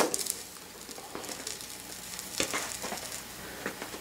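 Faint sizzling and crackling from a freshly soldered, still-hot brass and copper assembly cooling on a hot plate, with a few light ticks scattered through it. It opens with a light knock.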